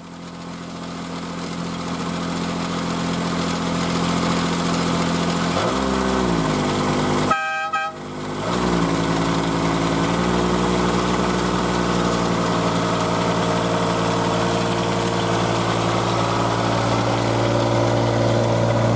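Miniature railway diesel locomotive's engine running, revving up twice, with a short horn toot about seven seconds in, then working steadily as it pulls its train away.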